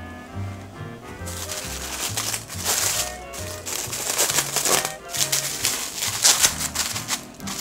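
Background music with a bouncy bass line, and loud irregular crinkling and crackling layered over it from about a second in.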